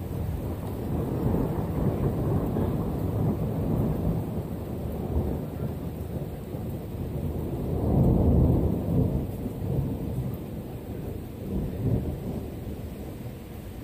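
Thunder rumbling continuously, a low rolling sound that swells to its loudest about eight seconds in and then dies away.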